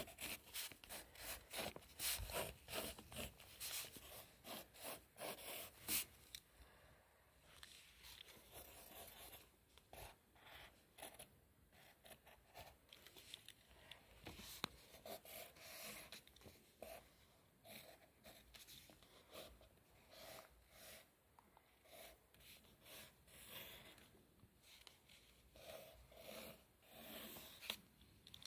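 Pencil scratching on paper in quick, repeated strokes as a sketch is drawn, faint, busiest in the first few seconds and lighter after that.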